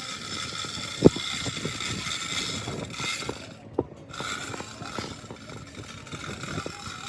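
Metal repair-work clatter: a sharp metal knock about a second in and a smaller one near four seconds, with lighter knocks between, over a steady high hiss that cuts out briefly just before the second knock.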